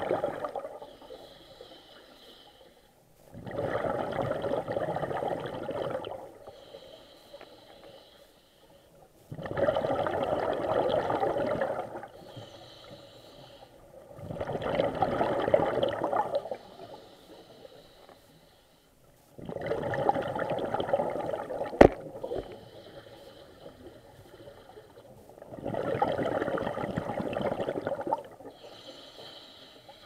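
A scuba diver breathing through a regulator underwater. Five long, loud, bubbling exhalations come about every six seconds, each followed by a quieter, hissing inhalation. There is one sharp tap a little past two-thirds of the way through.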